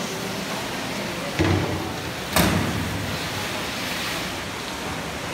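Two sharp thumps about a second apart, the second louder, over a steady rushing noise.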